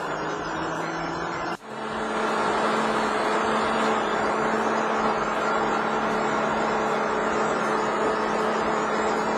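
REM VR12 grain vacuum running, its CAT Tier 4 diesel engine and blower making a dense, steady machine noise with a constant hum. It breaks off abruptly about a second and a half in and comes back louder, running steadily.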